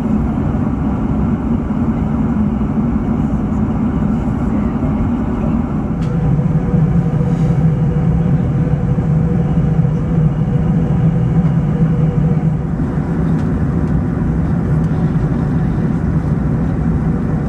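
Airbus A380 cabin noise in cruise: the steady roar of the engines and airflow as heard from a window seat. The low rumble shifts slightly about six seconds in.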